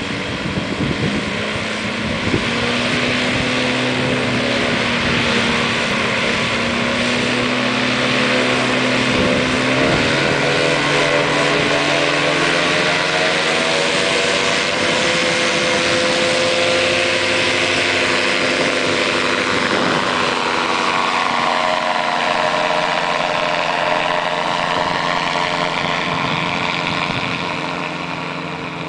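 Powered parachute's engine and pusher propeller running hard through the takeoff roll and climb-out. The pitch rises as the craft gathers speed, bends down about twenty seconds in, and the engine grows a little fainter near the end as the aircraft climbs away.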